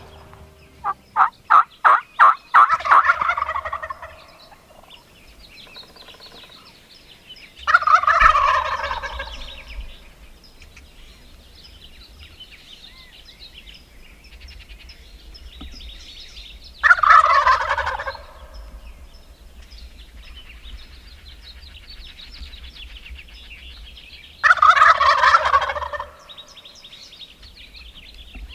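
Wild turkey gobblers gobbling four times, roughly every eight seconds. The first gobble opens with a quick run of short, sharp notes.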